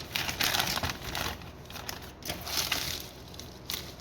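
Plastic packaging crinkling and rustling in bursts as a package is opened by hand, loudest in the first second.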